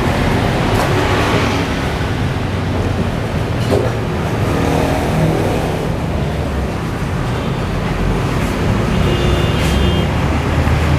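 Steady road traffic noise from vehicles on a busy street.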